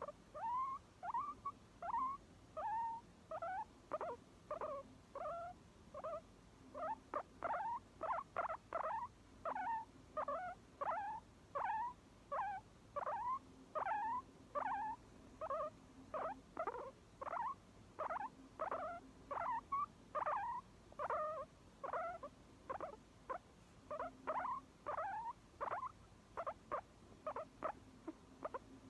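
Guinea pig squeaking over and over in short calls, each one bending up and down in pitch, about two a second.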